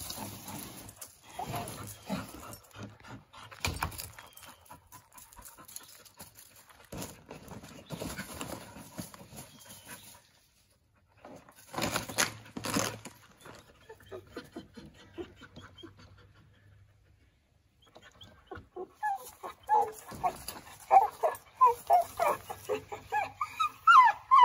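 A dog worrying and dragging a length of white PVC pipe, with scuffling and knocks as it bites and pulls. In the last few seconds there is a quick run of short high yips.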